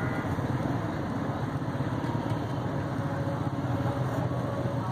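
A steady, even engine-like rumble, with no change in pitch or level.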